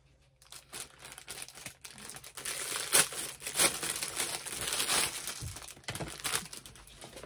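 Clear plastic wrapper crinkling and rustling as a pouch is pulled out of it, with a few sharper crackles around the middle.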